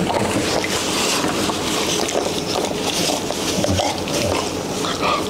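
Paper towel rustling and crinkling in uneven strokes as a newborn Rottweiler puppy is rubbed dry in it by hand.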